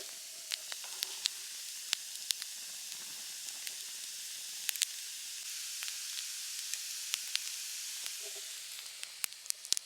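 Wood campfire hissing steadily, with scattered sharp crackles and pops; the hiss eases a little near the end.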